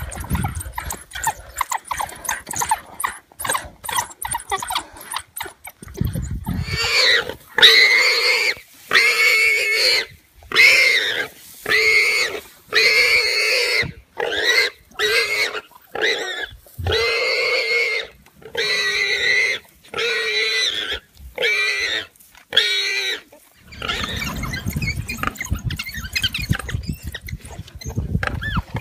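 Prey animal being pulled down by a pack of African wild dogs, screaming in distress. From about six seconds in, about a dozen loud, drawn-out cries come one after another, roughly a second and a half apart, until near the end. Scuffling and low rumbling fill the stretches before and after the cries.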